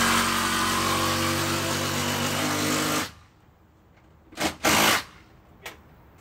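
Cordless power drill/driver running steadily for about three seconds as it drives a screw through a steel strap hinge into a wooden fence gate, then stopping abruptly. Two short bursts from the tool follow about a second later.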